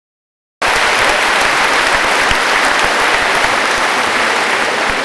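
Audience applauding: dense, steady clapping that cuts in abruptly about half a second in.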